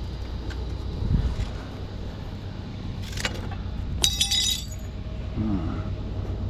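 Vehicle running with a steady low rumble, with a short metallic jingling clink about four seconds in.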